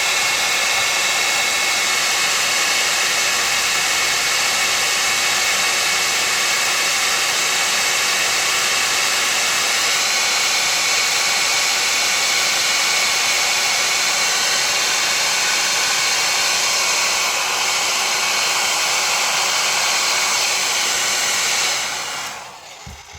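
Hot-air blower running steadily on the phone's rear camera glass, heating it to soften the adhesive. It is switched off about 22 seconds in and dies away.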